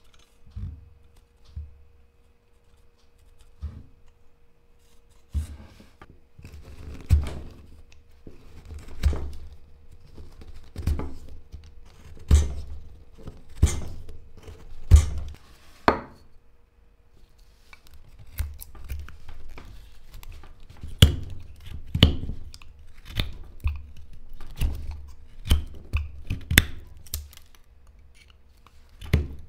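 Hand carving tools, a palm carving gouge and then a carving knife, cutting and shaving hard black locust (Robinia) wood in a series of short, sharp strokes. There is a brief pause about halfway through, and the strokes come quicker near the end.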